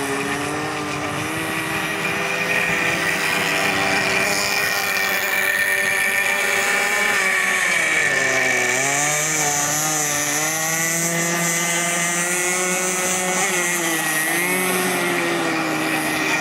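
26cc two-stroke petrol engine of a radio-controlled model power boat running at high speed, with a steady high-pitched buzz. Its pitch falls and climbs back twice, about halfway through and again near the end.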